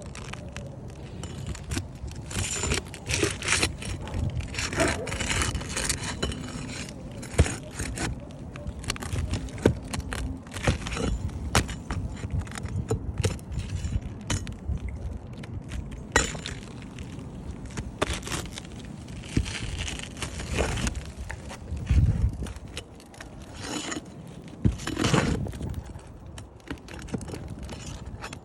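Irregular scraping, rustling and sharp clicks of hands and tools working on roof shingles during a shingle repair, over a steady low rumble.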